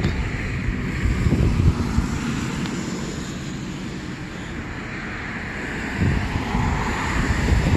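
Wind buffeting the microphone outdoors, a steady low rumble with a wash of hiss that swells slightly near the start and again toward the end.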